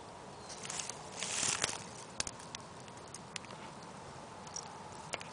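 Rustling and crackling of dry reed stalks, with a louder rustle about a second and a half in and a few sharp clicks later.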